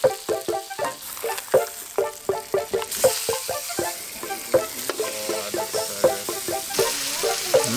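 Butterfish fillets sizzling in butter in a stainless steel frying pan. The sizzle grows louder about three seconds in and again near the end. Background music of rhythmic plucked notes plays throughout.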